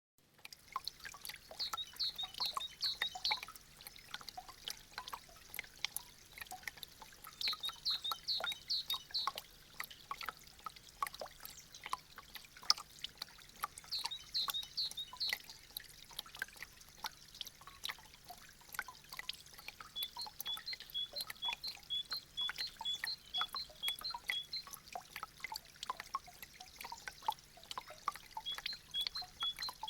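Meltwater dripping and trickling off melting icicles: an irregular patter of drops. Short bouts of high chirps come about two, eight and fourteen seconds in, then a run of evenly spaced chirps, about two and a half a second, from about twenty seconds in and again near the end.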